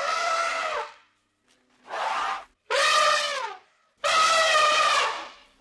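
An animal calling four times, each call a pitched, brassy cry of under a second with short silences between.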